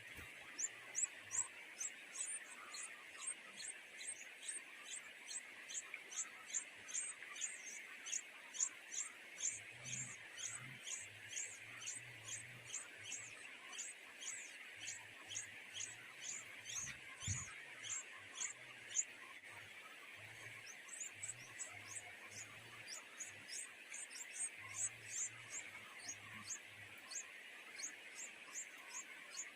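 Nestling birds giving rapid, high-pitched begging chirps, about three to four a second, with a short break about two-thirds of the way through, over a steady high hiss.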